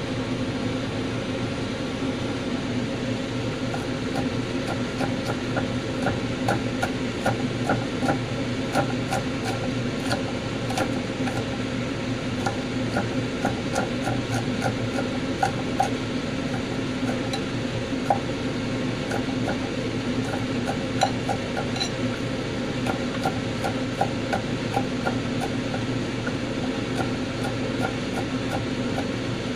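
Garlic being chopped with a large kitchen knife on a wooden cutting board: rapid, uneven knocks of the blade through the cloves onto the board, over a steady low hum.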